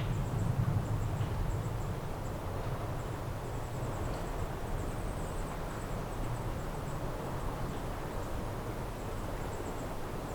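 Lakeside outdoor ambience: a steady breeze and lapping water with a low rumble, and faint, high-pitched wildlife chirps coming in short runs.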